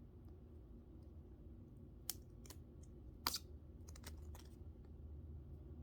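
Faint scattered clicks and crackles of fingers picking at and peeling the liner off an adhesive Velcro-type fastener strip, the sharpest two about two and three seconds in and a quick cluster about four seconds in, over a low steady hum.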